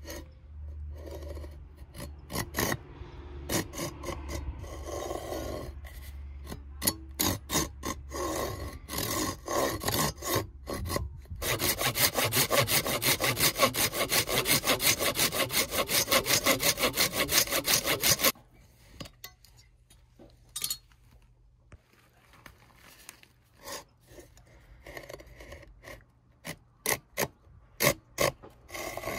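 Hand saw cutting through bamboo. Scattered strokes at first, then about six seconds of fast, steady sawing that stops suddenly, followed by occasional knocks and scrapes.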